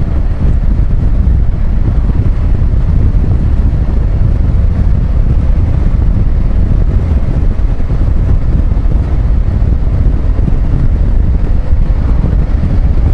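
Motorcycle cruising at a steady speed: loud wind rush on the rider's camera microphone over a low, even engine and road rumble.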